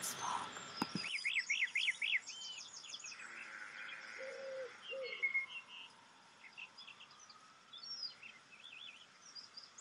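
Birdsong: several small birds chirping and trilling in quick, high runs, with two low, soft notes about four and a half seconds in.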